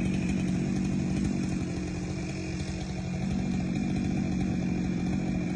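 Chainsaw running steadily, dipping slightly in level about two seconds in, then coming back up.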